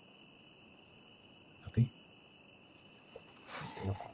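Steady high-pitched trill of insects, crickets, in the background, with a short burst of rustling and knocks near the end.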